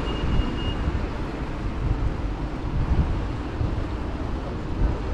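Outdoor city ambience: a steady low rumble of noise, with a thin high tone that stops about a second in.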